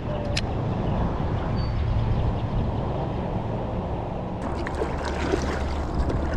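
Water lapping and trickling around a kayak's hull, with wind rumbling on the microphone and a few small clicks.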